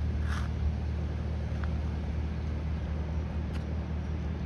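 Steady low rumble of a running motor, with a short hiss near the start and a couple of faint clicks.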